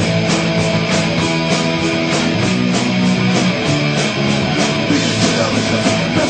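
Fast punk rock song playing: distorted electric guitars over drums with a quick steady beat.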